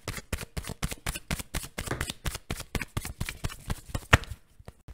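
Tarot deck being shuffled by hand: a rapid run of card-on-card flicks at about eight a second, with one sharper snap about four seconds in, after which the flicks thin out.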